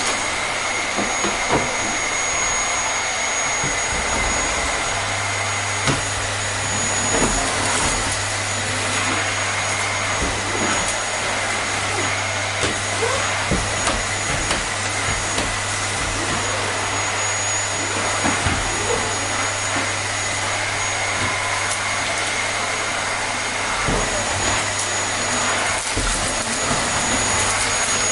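Vacuum cleaner running steadily: a constant rushing noise with a thin, steady high whine on top. A low hum joins about five seconds in.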